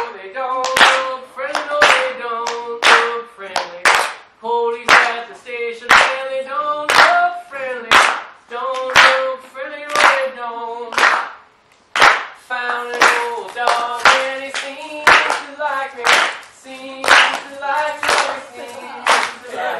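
Hand clapping in a steady rhythm, with voices singing a short repeated tune of held notes over it.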